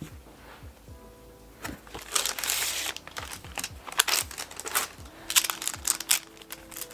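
Paper and plastic packaging crinkling and rustling in irregular bursts as hands open a small paper gift bag and handle a clear plastic sleeve. The sound starts about a second and a half in and is densest around two to three seconds in.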